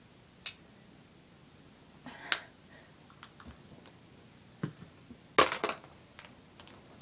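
Sharp plastic clicks and rattles of small makeup containers being handled, a few scattered single clicks and a louder quick cluster about five and a half seconds in.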